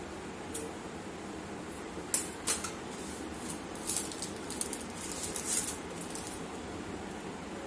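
Light plastic crinkling and a series of short sharp clicks, the loudest about two seconds in, as a plastic piping bag of caramel is handled and its tip cut, over a steady background hiss.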